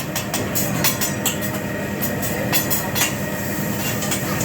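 Metal spatulas clinking and scraping on a hibachi griddle, many quick irregular clanks over a steady hiss of cooking and room noise.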